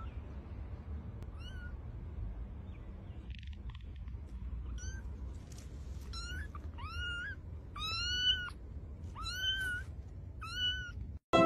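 Tiny kitten meowing repeatedly in high, thin calls, each rising then falling in pitch. There are about seven calls, a few seconds apart at first, then coming faster and louder in the second half. They sit over a low, steady background rumble.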